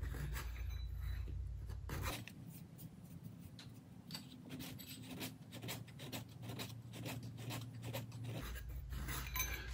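Hand file drawn in repeated short strokes across the milled metal surface of a mill table, a faint scraping rasp. It is dressing down a slightly high back edge left by cutting with an out-of-tram head.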